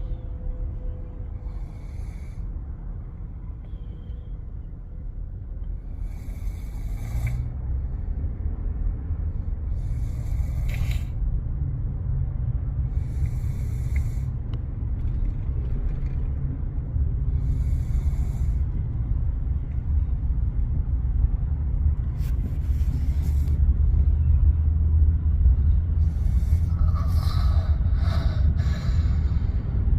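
Someone asleep and snoring: a breathy snore about every four seconds, over a steady low rumble that grows louder toward the end.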